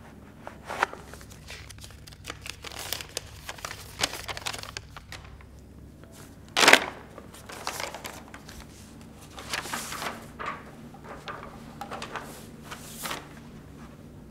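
Paper rustling and crinkling in short, irregular bursts, with one louder crinkle about six and a half seconds in.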